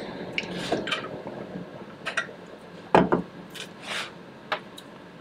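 Handling sounds on a desk as a plastic iced-coffee cup and a tablet case are moved: a few short clicks and rustles, and one sharp knock about three seconds in.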